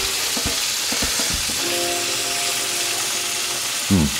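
Bacon sizzling in olive oil in a frying pan, a steady hiss, with a few light knocks in the first second and a half. Soft background music holds notes in the middle, and a short falling sound comes near the end.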